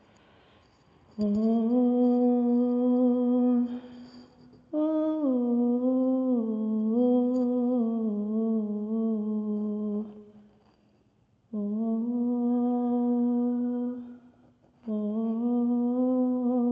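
A man humming a slow, sad, wordless melody in four long held phrases separated by brief pauses, the second phrase moving through small stepping turns.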